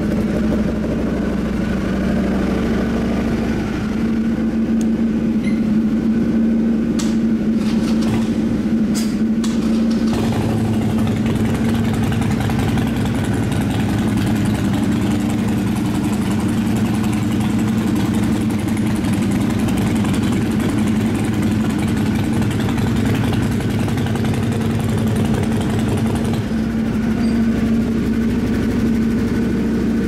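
Three motorcycles idling together at a steady loud level: an Indian FTR 1200 V-twin on a Toce low-mount full exhaust, a Harley-Davidson Roadster V-twin on Vance and Hines shorty pipes, and a Honda Hornet 600 inline-four on unbaffled slip-ons. A few sharp clicks come between about 7 and 9 seconds in.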